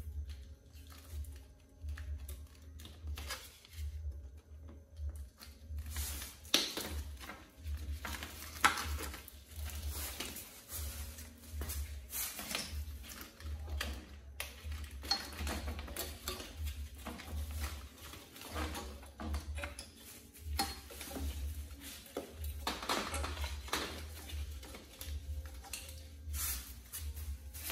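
Irregular clinks, knocks and rattles of rusty steel parts and wiring being handled and pulled on a stripped motorcycle frame, with one sharper knock a little under nine seconds in.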